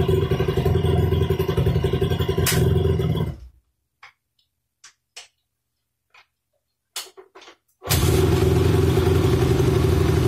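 Single-cylinder four-stroke engine of a 2004 Honda CRF250 dirt bike running steadily, then cutting out about three seconds in. A few light clicks and knocks follow, and the engine is running steadily again from about eight seconds in.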